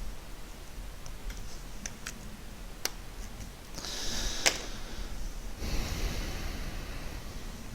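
Scattered computer mouse and keyboard clicks, a few sharp isolated clicks spread over several seconds, with two stretches of soft hissing noise about halfway and near the end.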